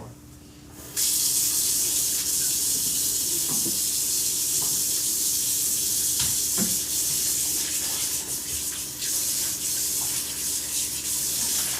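Kitchen faucet turned on about a second in and running steadily into the sink, with a few light knocks.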